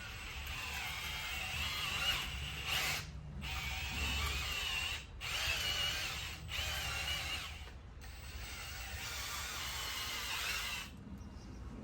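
A steady mechanical whirring with a wavering high whine, broken off briefly three times.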